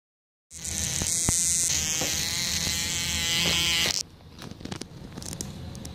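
A loud, steady electric buzz from a small motor, cutting off suddenly about four seconds in, followed by a few faint light taps.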